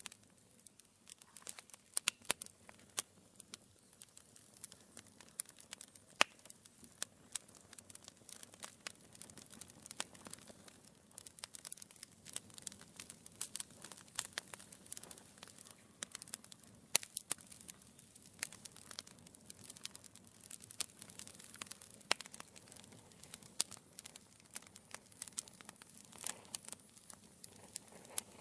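Wood fire burning in a fireplace, crackling steadily with many small irregular pops and a few sharper, louder snaps, over a soft hiss.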